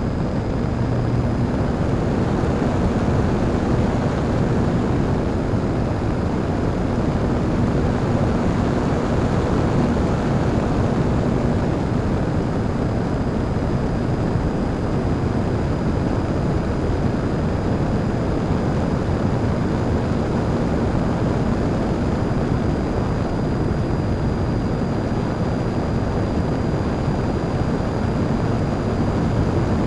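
Parkzone Radian electric glider under power, heard from its onboard camera: the electric motor and folding propeller running steadily while it climbs, mixed with a loud, steady rush of air over the microphone. A faint hum comes and goes underneath.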